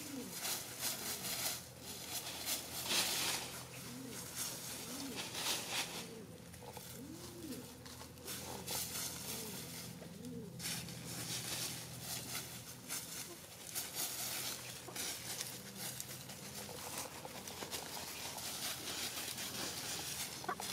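Chickens scratching and pecking through dry fallen leaves, the leaves rustling in repeated bursts, with short soft low bird calls now and then.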